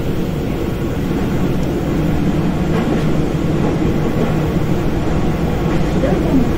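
Sendai Subway Namboku Line train running through a tunnel, heard from inside the leading car: a steady rumble of wheels on rails.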